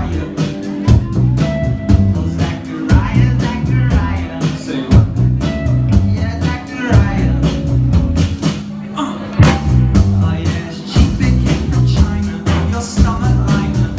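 Live band playing a rock song: drum kit keeping a steady beat under bass, guitar and a singing voice. The drums drop out for about a second around the middle, then come back in.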